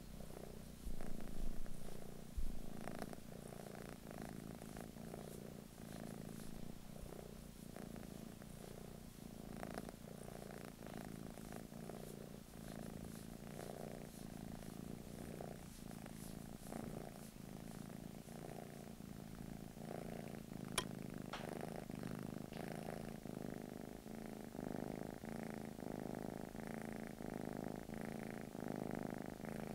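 Blue British Shorthair cat purring steadily, the purr swelling and easing in a regular cycle about once every second and a half. Two louder bumps in the first few seconds and a single sharp click about two-thirds through.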